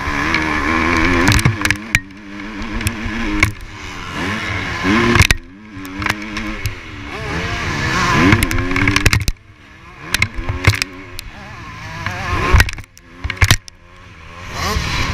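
Motocross bike engine at race pace, its pitch rising and falling as the rider works the throttle and gears. The engine falls away briefly a few times, with sharp knocks and clatter over the rough track.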